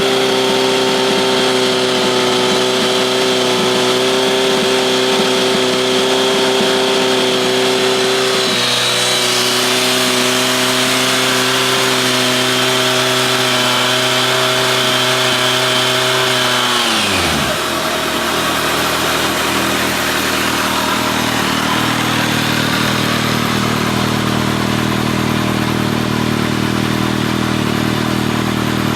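Kawasaki ZRX1200 DAEG's inline-four engine through an MH Asano titanium-carbon slip-on muffler, held at steady raised revs. The pitch dips slightly about a third of the way in. About two-thirds through the revs are released and the engine drops back to a steady idle.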